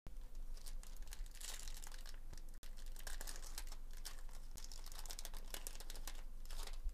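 Foil wrapper of a 2022 Topps Chrome baseball card pack crinkling as it is torn open by hand, a quick run of crackles throughout.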